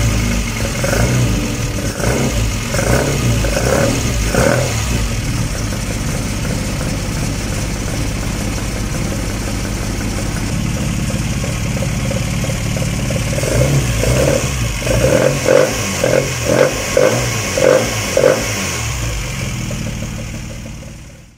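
Austin-Healey Frogeye Sprite's 1275 A-series engine on a Weber carburettor, running with two runs of quick throttle blips at about two a second: one in the first few seconds and another about two-thirds of the way through. The sound fades out near the end.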